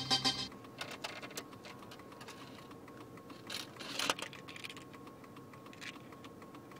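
Music from a car cassette deck cuts off about half a second in, followed by scattered light plastic clicks and clatter, the loudest about four seconds in. The Sony cassette radio does not accept the MP3 cassette adapter and stops playing it.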